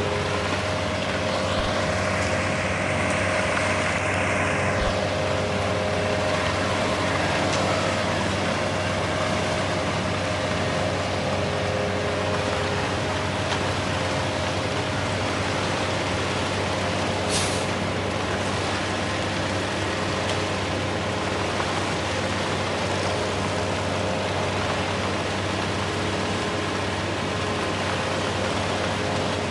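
Heavy diesel truck engine running steadily, with a hiss of air from about 2 to 5 seconds in and a brief sharp hiss about 17 seconds in.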